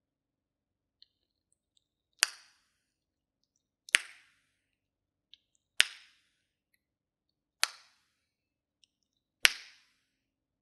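Five loud tongue clicks about two seconds apart, the tongue snapped down off the roof of the mouth, done as a mid-tongue strengthening exercise.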